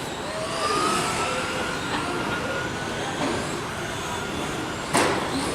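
Several radio-controlled GT race cars running laps, their motors giving thin rising and falling whines over tyre and track noise. A sharp clack sounds about five seconds in.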